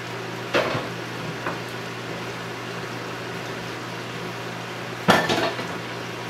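Kitchen clatter over a steady low hum: a sharp knock about half a second in as a plastic cutting board goes into a dish rack, then a louder clatter of kitchenware about five seconds in.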